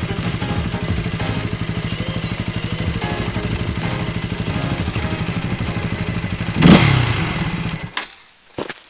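An engine running at idle with a steady rapid pulse. About 6.7 s in there is a sudden loud rush of noise, and the engine cuts off abruptly about 8 s in, followed by a couple of sharp knocks.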